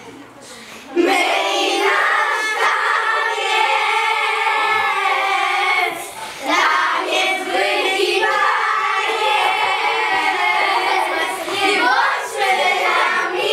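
A group of young girls singing together. The singing starts about a second in and breaks off briefly around six seconds.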